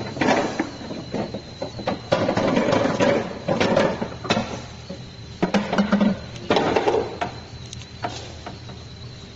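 Billiard balls on a coin-operated pool table clacking and knocking, with short rolling rumbles between the sharp strikes.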